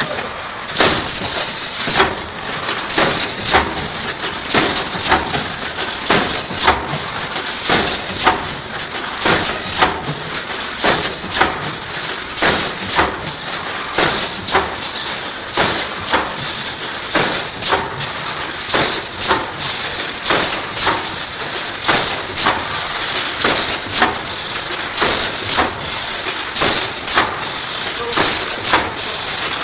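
Wire mesh welding machine running, its welding heads striking in a fast, repeated clanking rhythm of roughly two strokes a second over a steady high hiss.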